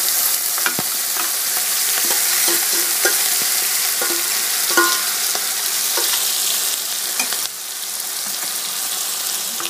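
Marinated mutton pieces sizzling and frying in oil in a pot, with scattered light clicks from stirring. The sizzle steps down a little in loudness about three-quarters of the way through.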